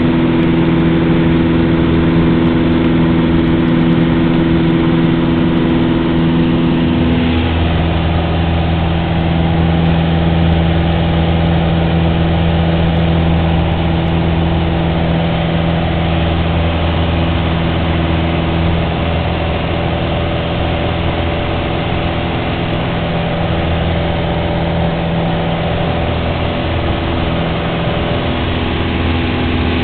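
Small airplane's engine running steadily, with a shift in the engine note about seven seconds in.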